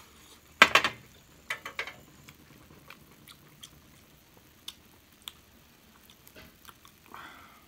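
Clinks of ceramic tableware while eating a hot pot. One sharp clink comes a little over half a second in and a few more ring out around a second and a half in, followed by light scattered clicks of chopsticks and a metal ladle against the bowl and the clay pot, with some chewing.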